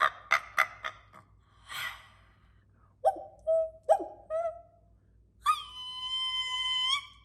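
A woman imitates nature sounds with her voice in the traditional Sakha manner. First comes a quick run of sharp clicks, then a breathy rush. Next are two short calls that fall in pitch, and about 5.5 seconds in she gives one long, high, steady cry.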